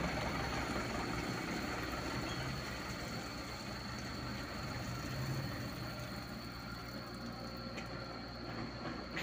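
Diesel engines running steadily at low revs: a Komatsu PC75UU mini excavator and a small dump truck driving slowly past.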